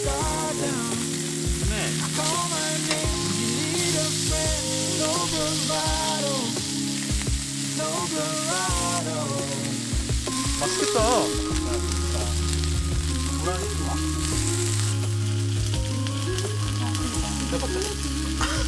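Food frying in a hot pan, a steady sizzle, with background music playing underneath.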